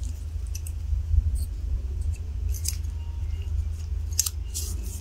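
Light metallic clicks and scrapes of AR-15 bolt carrier group parts being fitted back together, the firing pin going into the carrier, a handful of separate ticks over a steady low hum.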